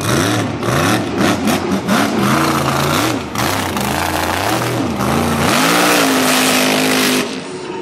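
Mega mud truck's engine revved hard up and down over and over, then held at high revs for about a second and a half before backing off near the end. Spinning mud tires throw a constant hiss and spatter of mud under it.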